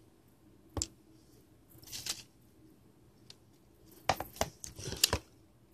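Cardboard packaging and a small plastic power bank being handled on a wooden tabletop: a sharp tap about a second in, a brief rustle around two seconds, then a quick cluster of knocks and scrapes near the end as things are set down.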